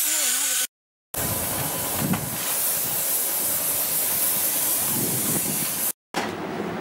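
Compressed-air paint spray gun spraying, a steady hiss for about five seconds. Before it, a brief moment of an angle grinder working iron.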